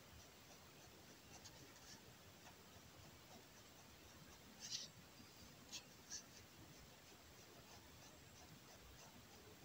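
Faint scratching of a fineliner pen hatching strokes on kraft paper, with a few short, louder strokes about halfway through.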